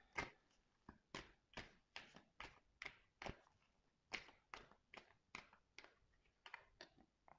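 A deck of oracle cards shuffled by hand: a faint run of soft taps and slaps as packets of cards drop onto one another, about two to three a second, pausing briefly about halfway through.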